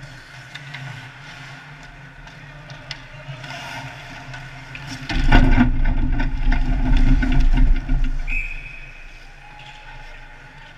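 Ice hockey play close by: skates scraping and sticks clacking on the ice. About five seconds in comes a loud rumbling thump and scrape right by the microphone, lasting some three seconds. About eight seconds in, a referee's whistle blows once, stopping play.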